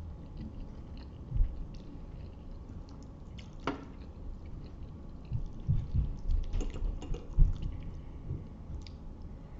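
Close-miked eating of spaghetti: wet chewing and mouth noises with scattered small clicks, a brief squeak just under four seconds in, and a run of low thumps in the second half.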